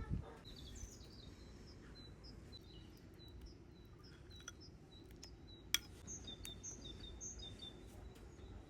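Small birds chirping in short, repeated calls over a steady low background noise, with a single sharp click about six seconds in.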